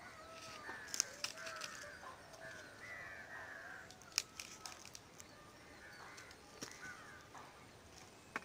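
A few sharp knocks of a pickaxe and a stick striking a hard baked clay lump and the ground: two close together about a second in and one about four seconds in. Birds call throughout.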